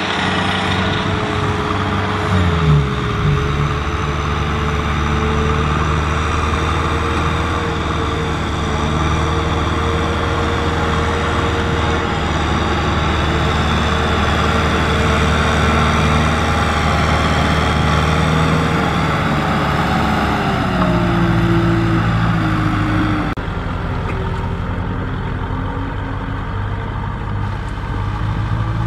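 Kubota M6040SU tractor's diesel engine running steadily while pulling a trailer heavily loaded with rice sacks. The engine note dips about two seconds in and drops lower again around twenty seconds in.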